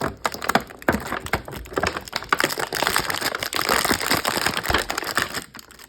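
Plastic action-figure packaging being handled and pulled apart: a dense run of clicks, snaps and crinkling as the figure is worked free of its plastic tray, the crinkling thickest in the middle.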